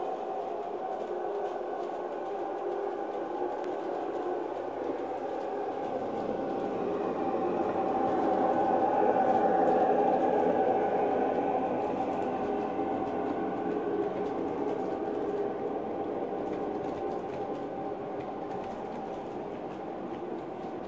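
LGB G-scale model train running past: a steady hum of the locomotive and its rolling tank wagons on the track. It grows louder about eight to eleven seconds in as the locomotive passes closest, then eases off as the tank wagons roll by.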